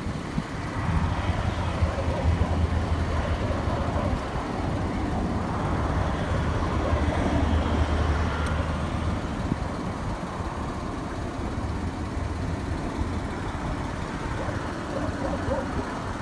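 A motor vehicle's engine running with road noise, a low hum strongest in the first half.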